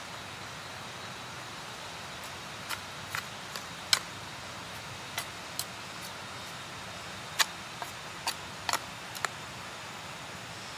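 About a dozen short, sharp snaps and clicks, irregularly spaced, starting a few seconds in, over a steady background hiss.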